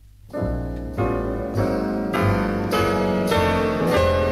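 Instrumental easy-listening music from a digitized vinyl LP. After a brief near-silent track gap with faint low hum, a new track starts about half a second in, opening with piano chords struck at a steady, even pulse.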